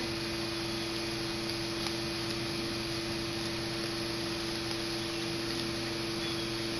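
Steady machine hum with one constant tone, unchanging throughout.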